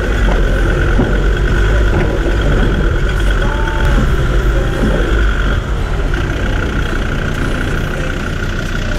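Land Rover Discovery 2 driving slowly over a rocky 4x4 track: a steady low engine rumble at low revs.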